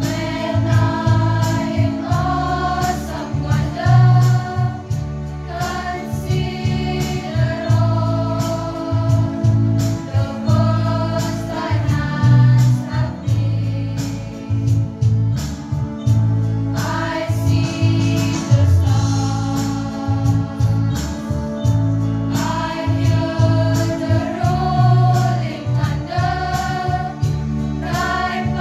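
A girls' choir singing a hymn in unison, the phrases rising and falling, over steady low accompanying notes.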